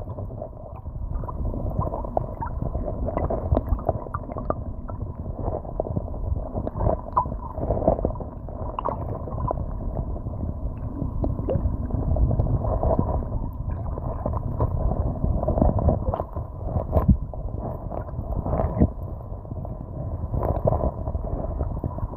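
Shallow river current heard from underwater: a muffled low rumble and gurgle of flowing water, with scattered faint clicks.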